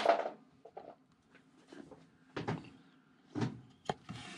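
Hard plastic graded-card slabs being handled and set on a table: a few soft knocks and clicks as the cases touch and slide, the sharpest near the end.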